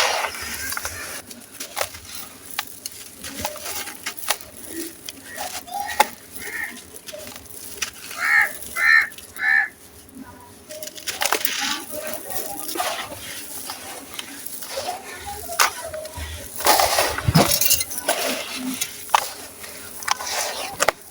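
Gritty sand cement chunks being crumbled and crushed by hand: irregular crunching and crackling, with a louder run of crumbling near the end.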